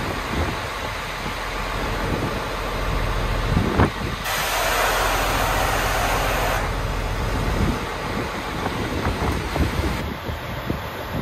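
Mitsubishi Fuso Aerostar city bus kneeling on its air suspension: a sharp click about four seconds in, then a loud hiss of air venting for about two and a half seconds as the body lowers, over the engine idling.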